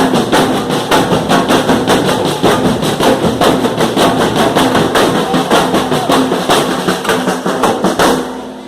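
Drum-led percussion music with fast, even beats, about four or five a second, that stops abruptly near the end.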